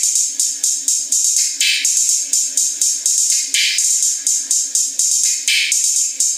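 A song played loud through a DS18 PRO-DKN25 neodymium compression horn driver on its own: only the treble comes through, with no bass, just rapid hi-hat-like ticks and a sharper snare-like hit about every two seconds.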